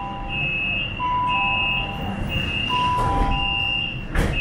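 Metro train door-closing warning: a high electronic beep repeating about once a second, each beep about half a second long, layered with a lower two-note chime. Near the end a single sharp thump, the doors beginning to shut.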